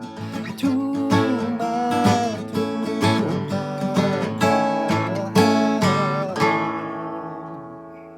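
Acoustic guitar strumming the song's closing chords, with a melodic line sliding over them. A last chord about six and a half seconds in is left to ring and fade out, ending the song.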